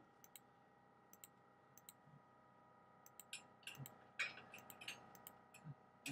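Faint computer mouse clicks, short and irregular, growing more frequent in the second half, over a quiet steady hum of room tone.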